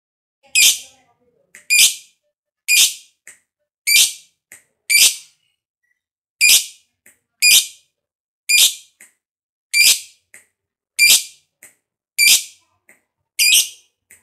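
Lovebird giving short, shrill calls, repeated about once a second, about a dozen in all, with one slightly longer pause near the middle.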